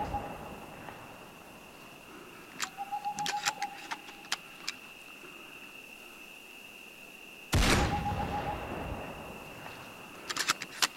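Airsoft sniper rifle shots with a loud, echoing report: one fading out at the start and another about seven and a half seconds in. Each is followed a few seconds later by a quick run of metallic clicks as the rifle is cycled. A steady high insect drone sits underneath.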